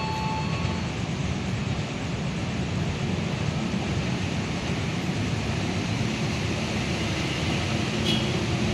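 Steady low rumble with an even hiss over it, a constant background noise on a commuter rail platform with no distinct events.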